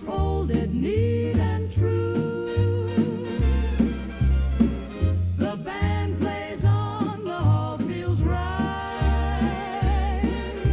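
Swing-style dance-band music with no lyrics. A bass line steps out a steady beat under held melody notes that waver with vibrato.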